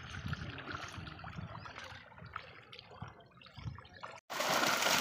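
Shallow water sloshing and trickling, with small splashes, as a fishing drag net is pulled through it. About four seconds in there is an abrupt break, then a much louder, continuous splashing of fish thrashing in the net.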